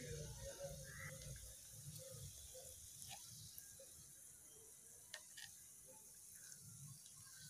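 Faint sizzling of fish frying in oil in a miniature clay pot, with a couple of light clicks from a small metal slotted spoon against the pot, about three and five seconds in, as fried pieces are lifted out.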